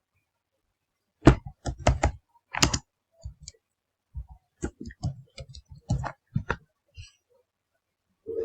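Computer keyboard keys being pressed in irregular bursts, a string of sharp clicks and taps, the loudest clustered about a second in.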